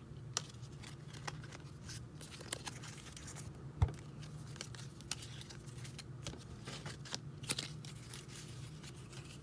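Faint crinkling and tearing of a baseball card pack's wrapper, with scattered light clicks and ticks of handling and one sharper knock about four seconds in.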